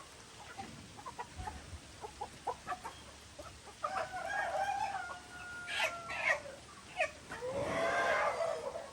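Chickens clucking in short scattered calls, then a rooster crowing twice in long drawn-out calls, the second one near the end the loudest.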